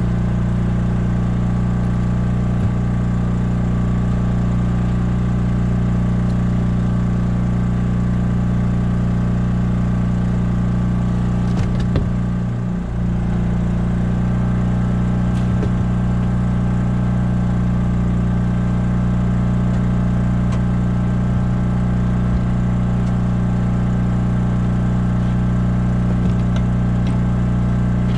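Small generator engine running at a constant speed, a steady low hum that briefly dips about twelve seconds in.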